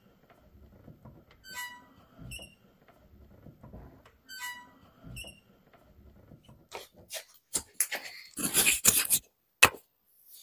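Chevy S10 driver's door hinges squeaking as the door swings, short high squeaks in pairs about every three seconds; the owner puts the squeak down to the door hinge pins. In the last few seconds comes a louder run of clicks and rustling.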